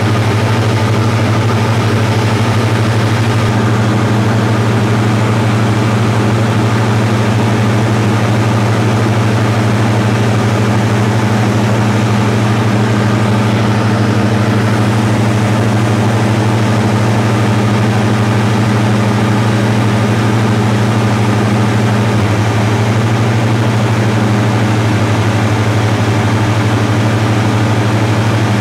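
Cessna 172 Diesel's FADEC-controlled diesel engine and propeller droning steadily in cruise flight, a loud, even hum whose low tone shifts slightly about three-quarters of the way through.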